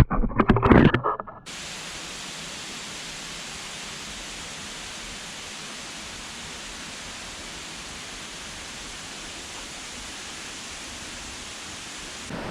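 Steady, even rushing of a large waterfall in full flow. It opens with about a second of loud, uneven, muffled noise that stops abruptly.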